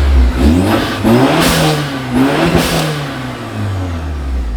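2008 Acura RDX's turbocharged 2.3-litre four-cylinder revved twice through a new aftermarket catback exhaust, the pitch climbing and falling back each time. A sharp airy hiss, typical of the aftermarket blow-off valve venting, comes at the top of each rev.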